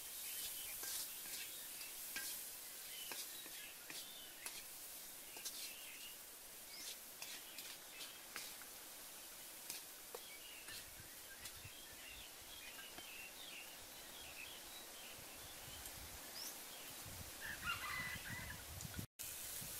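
Short worms frying in a wok over a wood fire: a steady faint sizzle with scattered pops and crackles. Birds chirp now and then.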